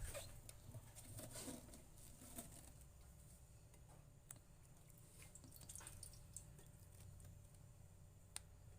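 Faint, scattered ticks and small patters of cooking oil in a hot frying pan, over near silence, with one sharper tick near the end.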